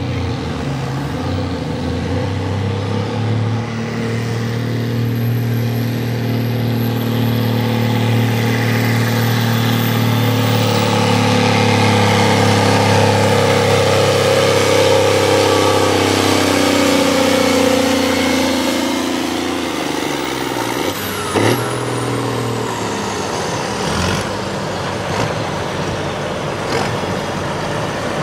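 Antique Case tractor engine pulling a weight-transfer sled under heavy load, its exhaust note steady at first, then falling in pitch as it bogs down from about 16 to 19 seconds in. About 21 seconds in the engine drops off with a short, quick rise in pitch, then runs on at a lower, steadier note.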